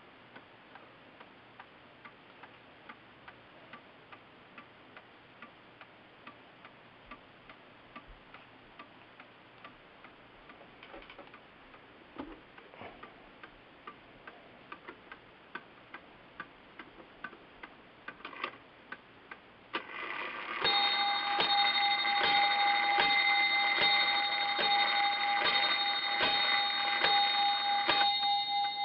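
Ingraham time-and-strike mantel clock movement ticking steadily, then, about two-thirds of the way through, striking the hour: a run of evenly spaced strokes about one a second, much louder than the ticking, the tone ringing on after the last stroke.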